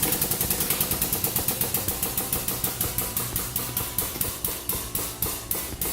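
Hydraulic press running with a fast, even rhythmic knocking that gradually slows, from about nine beats a second to about four.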